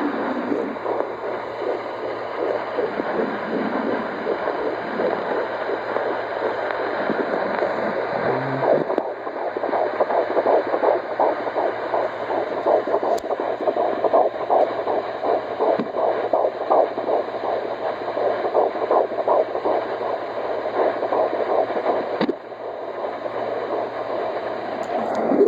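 A fetus's heartbeat at 13 weeks picked up by a home fetal Doppler monitor and played through its speaker: a fast whooshing pulse of about 155–170 beats a minute over steady hiss, clearest and most even from about nine seconds in.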